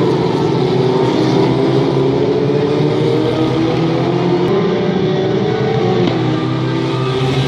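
A pack of pre-1981 Formula Ford race cars, each with a Ford Kent 1600 four-cylinder engine, running close together through a bend. Several engines sound at once, their pitch rising as the cars accelerate.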